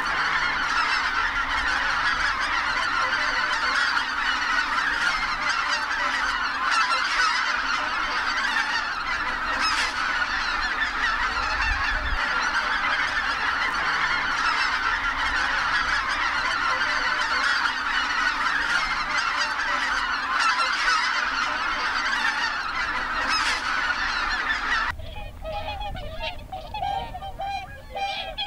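A large flock of whooper swans calling all at once: a dense, continuous din of overlapping honking calls. Near the end it cuts to fewer swans, whose separate honks stand out.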